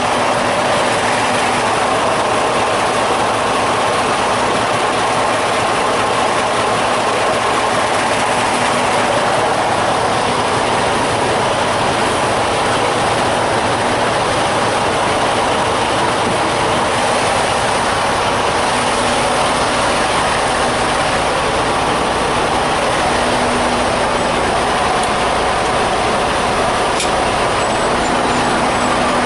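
Semi truck running with a steady, even noise and no sudden changes.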